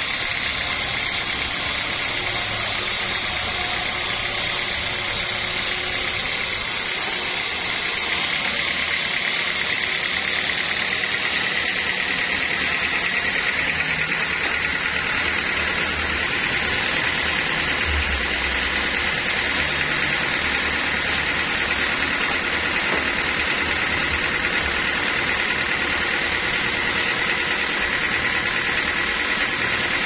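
Homemade band sawmill running steadily, its blade sawing lengthwise through a thick teak board, with a steady high tone over the machine noise.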